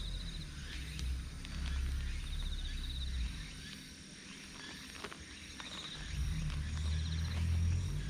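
An insect calling in short, rapidly pulsed high trills, about half a second to a second each, repeating every couple of seconds. A louder low rumble comes and goes underneath, with a few faint knocks.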